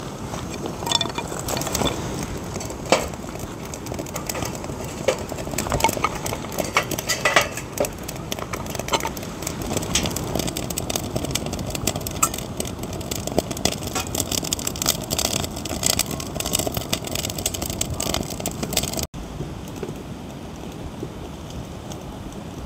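Irregular clinks and light knocks of camping gear and cookware being handled, over a steady background hiss. About 19 s in, the sound cuts abruptly to a steadier, quieter hiss with few clinks.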